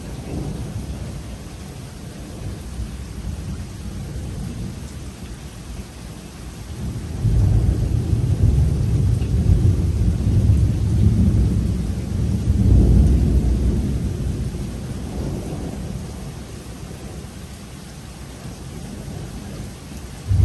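Thunder rolling in a rainstorm over steady rain. A low rumble swells about seven seconds in, stays loud for several seconds, then fades away, and another roll of thunder begins at the very end.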